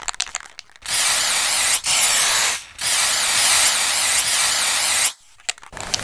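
Logo-intro sound effect: a quick run of clicks gives way to a loud hiss that breaks off briefly twice. Near the end the hiss stops, a few faint clicks follow, and then another louder passage begins.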